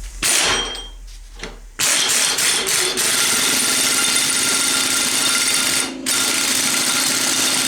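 A pneumatic air tool runs in two long bursts, with a short pause just past the middle, while the piston lock nut on a hydraulic cylinder is run tight. A brief noise comes just before it.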